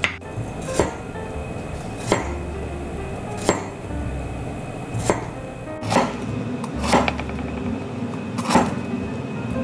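A kitchen knife slicing through bitter melon onto a wooden cutting board, each stroke ending in a sharp knock on the board, roughly one a second and a little quicker in the second half, over background music.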